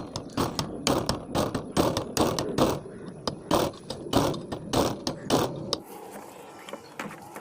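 Repeated sharp mechanical clicks, about two or three a second, from hand-tool work on a two-stroke chainsaw under restoration; they stop about six seconds in.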